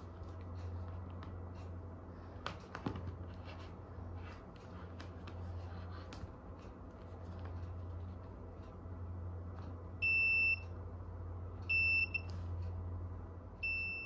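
A digital multimeter's continuity buzzer beeps three times, short high steady beeps, the first about ten seconds in and the next two less than two seconds apart. Each beep marks the probes closing a circuit through the wire: the wire has continuity. Faint clicks of the probes and wire being handled run underneath.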